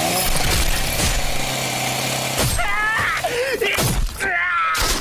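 Anime fight-scene sound effects: dense crashing and breaking noise with repeated sharp impacts, joined from about halfway by high, wavering pitched sounds.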